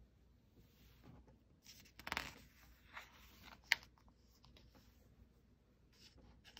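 Faint rustle of a paperback picture book's page being turned by hand about two seconds in, followed by a single sharp tap as the new page is pressed flat.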